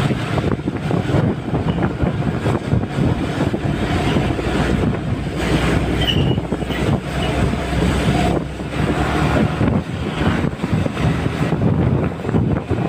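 Motorcycle riding on the road: wind buffeting the microphone over a steady low rumble of engine and tyre noise.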